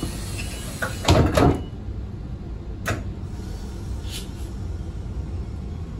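Train's sliding passenger doors closing at a station stop: a loud double thud about a second in, followed by two fainter clicks, over a steady low hum.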